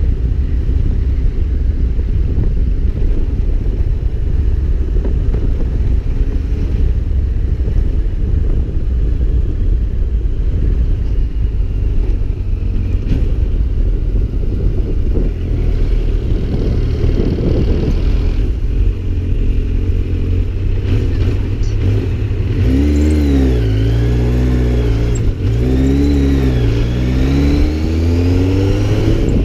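Motorcycle engine running under way, heard from on the bike. Near the end the engine note rises and falls a few times, then climbs steadily as the bike accelerates.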